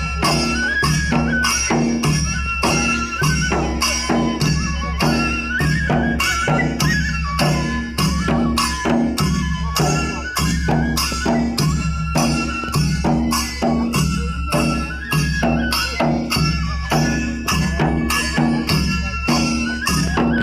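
Traditional folk music with a steady drum beat, about two to three strokes a second, under a wavering melody.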